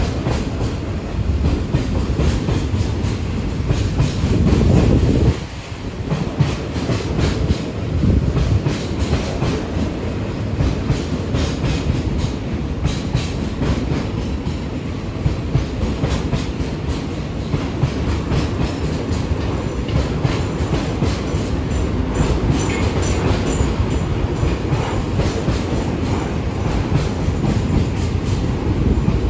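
Freight train rolling past at speed, a continuous rumble with rapid clicking of wheels over rail joints, briefly dipping a little over five seconds in.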